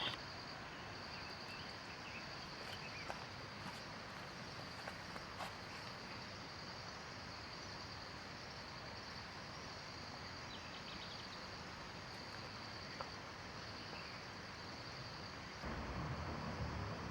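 Forest insects trilling steadily in one high, continuous chorus over a soft, even background hiss, with a few faint ticks. Near the end, a low rumbling noise sets in beneath it.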